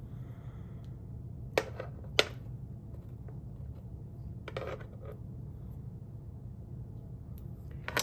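Old metal keys clinking as they are handled and set down on a wood panel board: two sharp clicks about half a second apart near the start, then a softer clatter a couple of seconds later, over a steady low hum.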